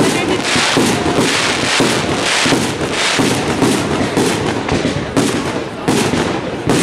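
Aerial fireworks shells launching and bursting in quick succession, a steady run of bangs and crackle several times a second.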